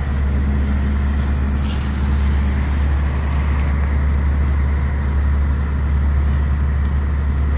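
Fire engine running steadily with a deep, even drone while its pump feeds the hose lines.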